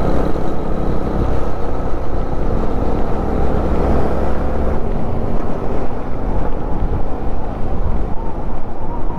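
Road vehicle on the move: steady engine and road rumble. The deepest part of the rumble eases about five seconds in.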